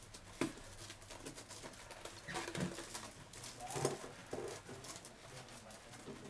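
Corrugated plastic Kirby fill tube being twisted onto the vacuum's boot inside the cloth outer bag: intermittent faint rubbing and creaking of plastic and fabric, with a click about half a second in.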